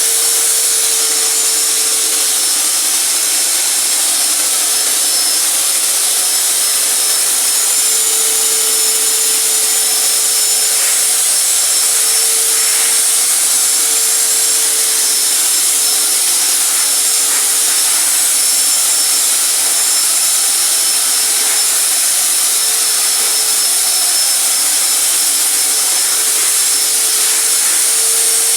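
Electrolux Flex 1400 W wet-and-dry vacuum cleaner running steadily, a constant motor whine and airflow rush with a steady hum underneath.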